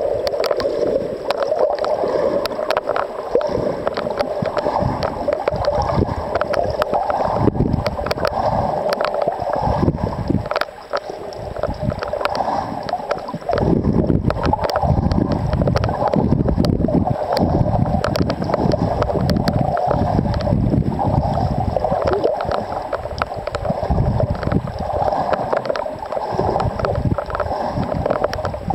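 Muffled underwater water noise picked up by a waterproof compact camera while it is submerged: a steady rushing wash with low rumbling surges and scattered clicks.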